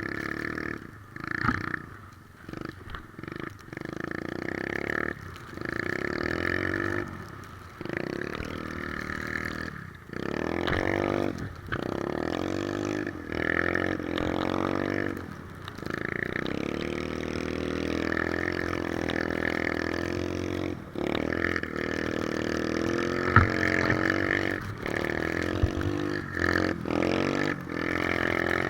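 Three-wheeler ATV engine running under changing throttle. Its pitch rises and falls, and the sound drops off briefly many times as the throttle is eased and opened again.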